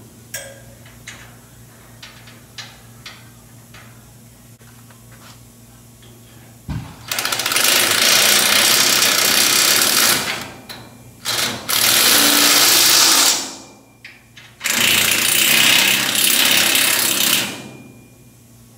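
Cordless impact wrench hammering in the steering box mounting bolts: three long bursts of a few seconds each, with two short blips between the first and second, after light clicks and clanks of the box and bolts being handled.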